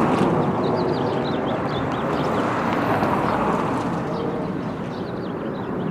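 Steady jet-like noise of aircraft flying overhead, easing off a little near the end, with small birds chirping.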